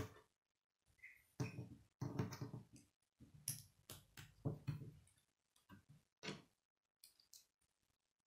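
K'nex plastic rods and connectors clicking and rattling as they are pressed and snapped together by hand, in an irregular run of clicks and short clatters.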